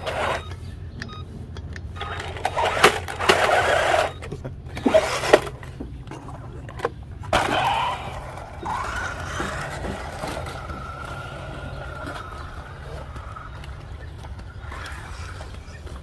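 Radio-controlled monster truck driving: two loud bursts of acceleration, the first about three seconds in and the second near eight seconds, with several sharp knocks between them, then a thin steady whine for a few seconds as it runs on.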